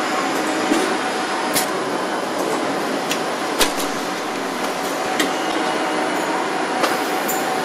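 Car-factory assembly-line machinery running steadily, with about five sharp clicks and clanks from an industrial robot's pneumatic gripper tooling as it fits a cockpit module into a car body; the loudest clank comes about halfway through.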